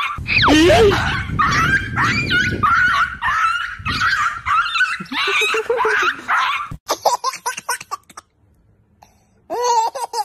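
A dog yelping and whining in repeated high cries for about seven seconds. After a short near-silent gap, a baby laughs near the end.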